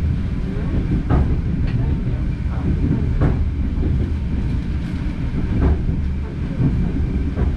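Passenger train heard from inside the carriage: a steady low running rumble, with a few irregular sharp clacks as the wheels pass over rail joints.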